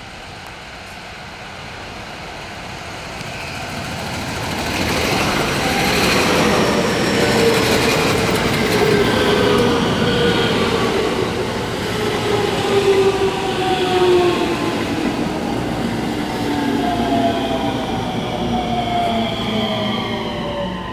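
JR West 223 series electric train arriving and running past close by as it brakes. Its motor whine falls steadily in pitch as it slows, over the rumble of wheels on rail. The sound grows louder from about four seconds in as the train comes near.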